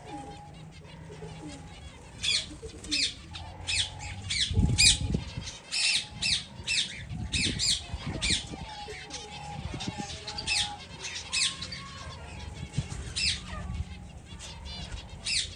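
Pet finches calling: many short, sharp calls, several a second, busiest in the middle, with a few low thuds.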